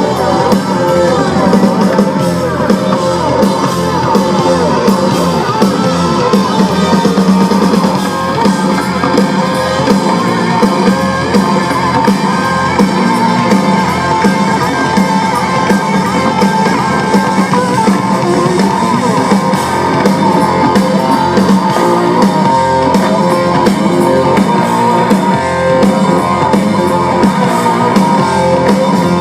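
Live blues-rock band playing loudly and steadily without vocals, electric guitar to the fore over a drum kit and bass.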